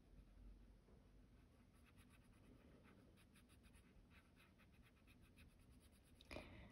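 Faint scratching of a colored pencil on paper in many quick, light strokes, with a slightly louder rustle near the end.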